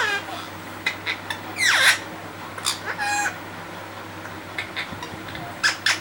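Pet green parakeet giving short squawks and calls, the loudest a falling screech just before two seconds in and another call about three seconds in, with scattered short clicks between them.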